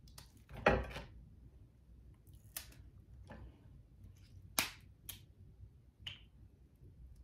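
Crab-leg shells snapped and cracked apart by hand: a few separate sharp snaps, the loudest under a second in, the rest spread over the following five seconds.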